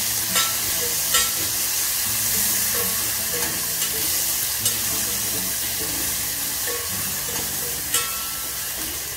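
Onion, garlic, ginger and green chilli paste sizzling as it fries in hot oil in a stainless steel pot, stirred with a steel slotted spoon. A steady sizzle runs throughout, with a few sharp clicks of the spoon scraping and tapping the pot.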